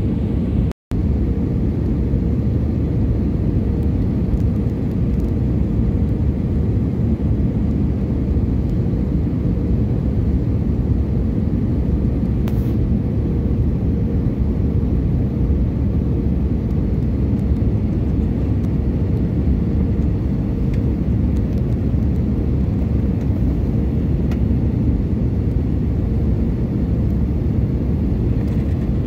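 Jet airliner cabin noise heard from a window seat over the wing during the descent to land: a steady, loud rumble of engines and airflow with a faint steady hum. The sound cuts out for an instant about a second in.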